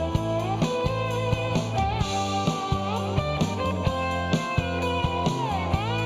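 Rock band playing: electric guitars with sliding notes over held bass notes and a steady drum beat.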